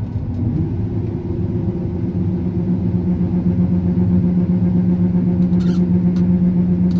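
Combine harvester engine running with a steady drone, building a little in loudness over the first couple of seconds and then holding even.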